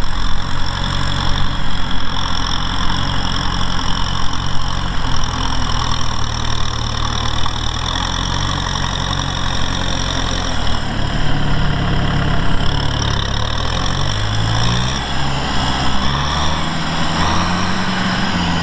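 Kubota M6040SU tractor's diesel engine running steadily while the tractor works a blade through dry, cloddy soil. The engine note shifts up and down several times in the second half.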